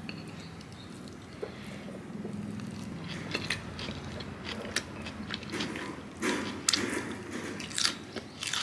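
Eating at the table: chewing and wooden chopsticks clicking and scraping against a plate, a run of short, uneven clicks and crunches that grows busier about halfway through.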